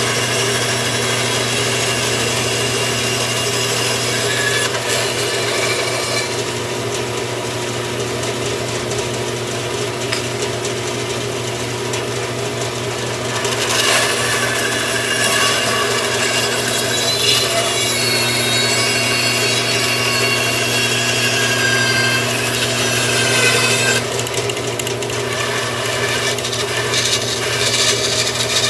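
Bandsaw running with a steady hum while its blade cuts through a stack of wooden spoon blanks. The cutting gets louder and harsher about halfway through and eases off a few seconds before the end.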